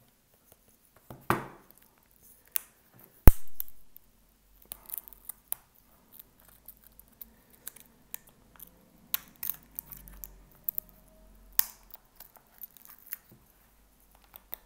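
Scattered small clicks, crackles and scrapes of shattered iPhone 13 back glass being pried off bit by bit, with one sharp, loud click about three seconds in.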